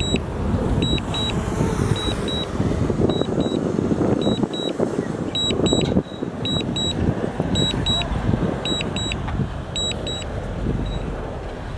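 Heavy diesel earthmoving machinery running under load with a steady rumble, while a high-pitched warning alarm sounds short beeps, mostly in quick pairs, again and again over it.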